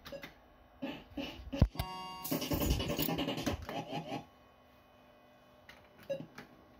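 Barcrest Alphabet fruit machine's electronic sound effects: a sharp clunk about a second and a half in, a short beep, then about two seconds of busy jingling, with a couple of small blips near the end.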